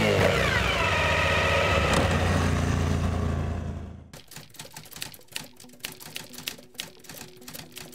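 Motorcycle engine with its revs falling, fading out about four seconds in. Then a run of rapid, uneven typewriter-like key clicks over a faint steady hum.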